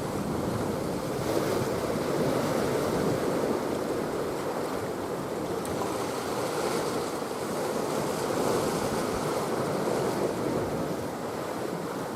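Steady rush of wind and sea waves.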